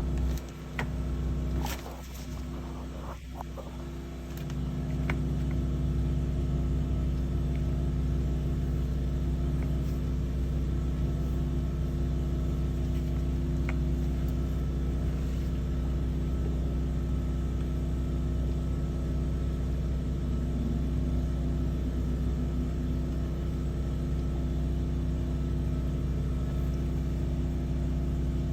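Sewer water jetter's engine running steadily with a low hum. It drops back briefly with a few knocks, then picks up again about four seconds in and holds steady.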